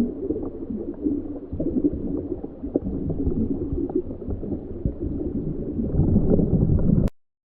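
Muffled underwater bubbling: a continuous stream of bubbles, louder near the end, which cuts off suddenly about seven seconds in.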